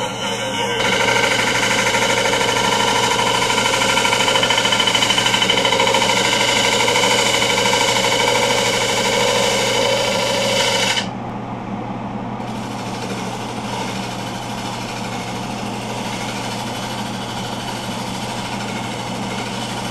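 A turning tool cuts the outside of a spinning black walnut bowl on a midi wood lathe, giving a loud, rough, rapidly pulsing cutting noise over the lathe's steady hum. The cut stops suddenly about eleven seconds in, and the lathe runs on alone.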